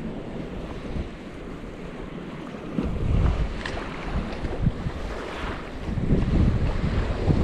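Wind buffeting the microphone in uneven gusts, a low rumbling rush that grows stronger about three seconds in and again near the end.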